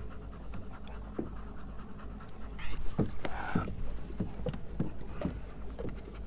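Labmaraner dogs (Labrador–Weimaraner crosses) panting in quick, repeated breaths.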